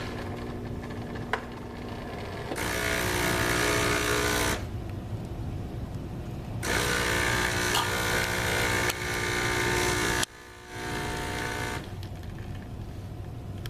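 Solis Master 5000 espresso machine running through a test brew cycle: a steady mechanical hum with two louder, harsher stretches of a couple of seconds each. The louder sound cuts off sharply about ten seconds in, leaving a quieter hum.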